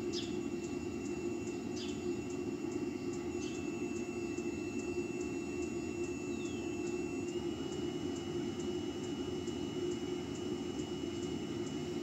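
Webasto diesel parking heater running steadily at full burn: a constant combustion and blower rumble with a thin high whine that steps up slightly about seven seconds in, and a light regular ticking of about two to three a second, typical of the heater's fuel dosing pump.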